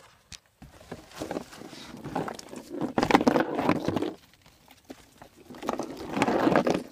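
A cardboard box being tilted and handled, with loose small objects inside rolling and knocking against the cardboard. There are two spells of rustling and clattering, with a short lull between them.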